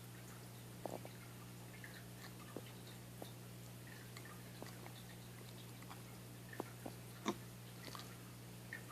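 Faint, scattered mouth clicks and smacks from a sleeping pit bull mix puppy, a few seconds apart, over a steady low hum.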